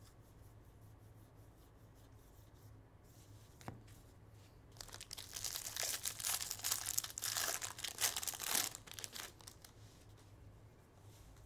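A Bowman baseball card pack's foil wrapper being torn open and crinkled, a crackly burst lasting about four seconds that starts near the middle, after a single faint click.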